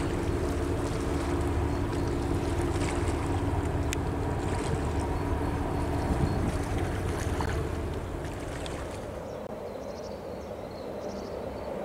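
Cargo ship's diesel engine droning steadily as it passes close, with water churning in its wake and wind on the microphone. About eight seconds in this gives way to a quieter scene with small birds chirping repeatedly.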